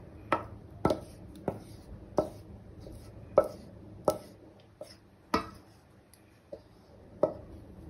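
Spoon scraping and knocking against a metal saucepan while thick cream is scraped out into a glass dish. About eight sharp knocks come at irregular gaps of half a second to a second, with softer scraping between them.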